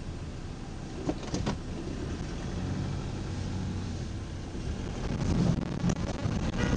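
Car engine and tyre noise heard from inside the cabin as the car pulls away and gathers speed, the low rumble growing louder, most of all in the last couple of seconds. Two light clicks sound about a second in.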